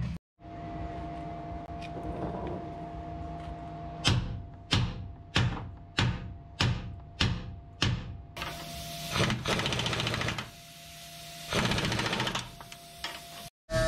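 A hammer strikes steel under the truck about eight times in an even rhythm, one blow every half-second or so. Then an air tool with a socket on a suspension bolt runs in two rattling bursts.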